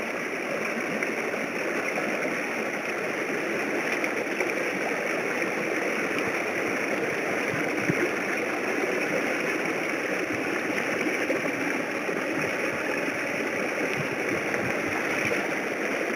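Steady rushing and gurgling of creek water around a camera held underwater, with a few faint knocks.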